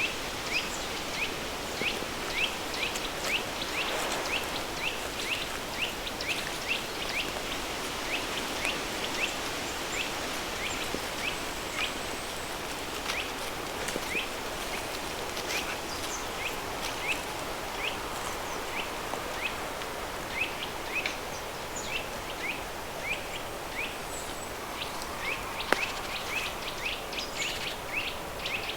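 Steady rush of a river stream blended with pink noise. Over it a bird chirps repeatedly with short high chirps, about two a second.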